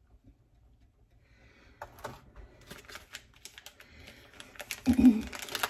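Clear plastic packaging tray handled and worked with a knife: a run of crackles and clicks starting about two seconds in, with a dull knock about five seconds in.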